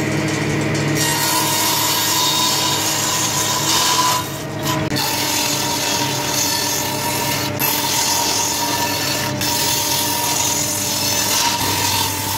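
Table saw running and crosscutting glued-up oak boards to rough length, the blade's steady whine under the noise of the cut, with a brief drop in loudness about four and a half seconds in.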